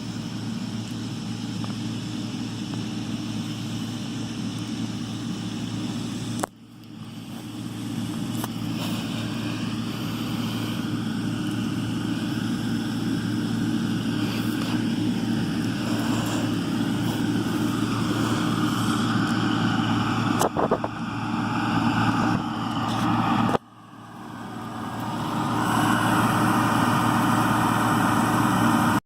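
John Deere 4440's six-cylinder turbo diesel running steadily under load as it pulls a New Holland Roll-Belt 450 round baler through the hay. The sound drops out suddenly twice, about six seconds in and again past twenty seconds, and swells back up each time.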